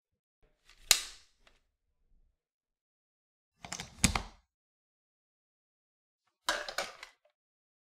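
Hard plastic clicks and knocks from fitting together a Dyson cordless vacuum's floor dock and plugging in its charger: one sharp click about a second in, a heavier click with a dull knock about four seconds in, and a quick run of small clicks near the end.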